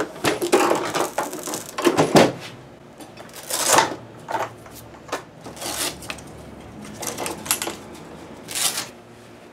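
Metal hand tools and small parts clinking and rattling on a workbench as a guitar is worked on. The short clatters come thick in the first two seconds, then a few more spaced out.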